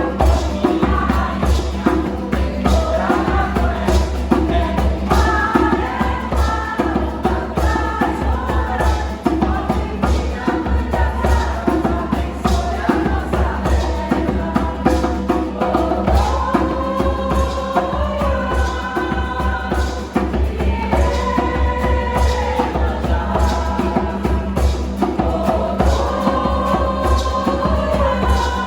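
Choir singing a folk song, with a steady percussion beat and a deep bass underneath.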